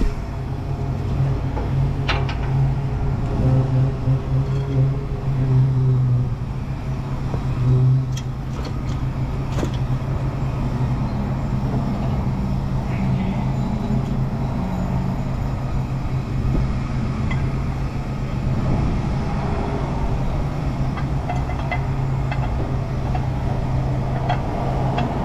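A steady low mechanical hum runs throughout, with a few light metallic clicks as brake pads and caliper are handled at the wheel hub.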